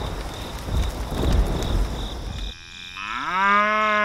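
A rumbling, rushing noise that stops suddenly about two and a half seconds in. Then a cow moos once near the end: the call rises in pitch and is held for over a second.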